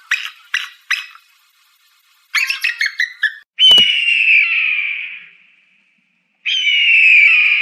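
Eagle calls: four short, sharp chips, then a quick run of piping notes about two and a half seconds in, then two long screams that slide down in pitch, each lasting over a second.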